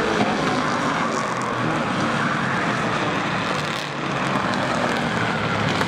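Street stock race car engines running hard at speed as several cars lap the oval together, a steady loud engine noise that dips slightly about four seconds in.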